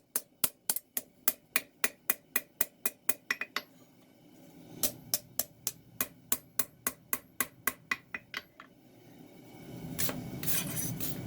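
Light hammer taps on a hot knife blade on an anvil, about four quick strikes a second, in two runs with a short pause between. Near the end, a louder steady rushing noise comes in under more strikes.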